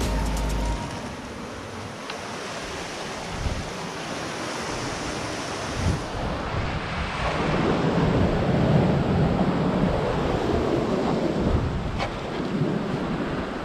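Surf washing and breaking among coastal boulders, swelling louder about halfway through, with wind buffeting the microphone. A couple of short knocks stand out, around the middle and near the end.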